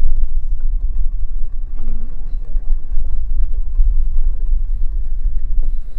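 Steady low rumble aboard a small open fishing boat at sea, its level wavering throughout, with a short faint voice about two seconds in.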